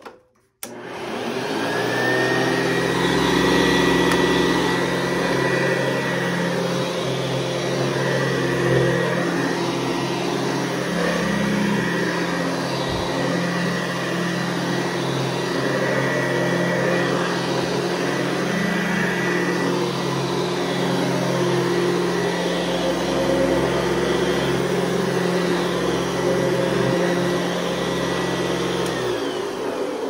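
Hoover Convertible U4315 upright vacuum switched on. The motor spins up to a steady hum with a thin high whine as it is pushed back and forth over carpet, then it is switched off near the end and winds down.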